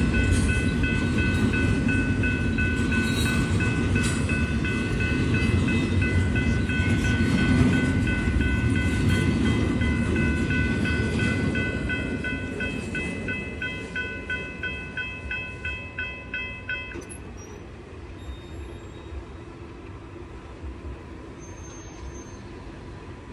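Intermodal container train rolling past and fading away, its low rumble dying down about halfway through. Over it a steady high ringing of several notes turns into a regular pulse of about two a second, then cuts off suddenly about two-thirds of the way through.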